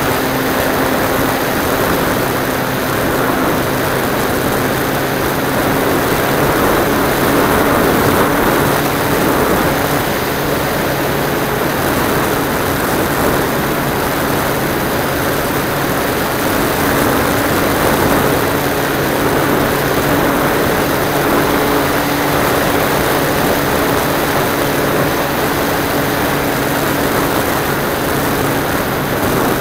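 Model aircraft's engine and propeller running steadily in flight, heard close up from a camera on board, over a constant rush of wind. The engine note shifts slightly in pitch as the plane manoeuvres.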